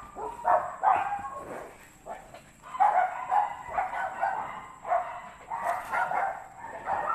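An animal calling over and over in short pitched calls, several in quick succession and some overlapping, about two a second at their fastest.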